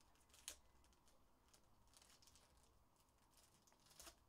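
Faint crinkling and tearing of a foil trading-card pack wrapper being opened by hand, with a sharper crackle about half a second in and another near the end.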